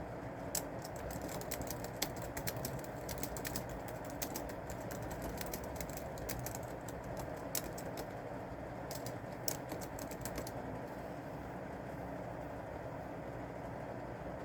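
Typing on a keyboard: irregular runs of key clicks that stop about three-quarters of the way through, over a steady low background noise.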